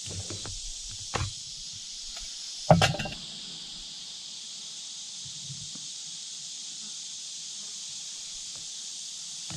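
A few clicks and knocks from a glass French press, its lid and plunger handled on a wooden bench, the loudest about three seconds in, then the plunger is pushed slowly down with little sound. A steady high-pitched chorus of insects runs underneath.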